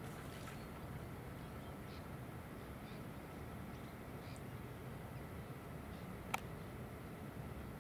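Faint, steady outdoor background hiss at the shoreline, with a few soft ticks and one sharp click about six seconds in.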